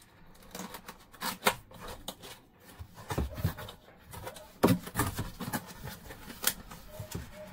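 A cardboard box being opened by hand: its lid and inner flaps lifted and folded back, with scattered scrapes, rustles and light taps. The loudest is a little under five seconds in.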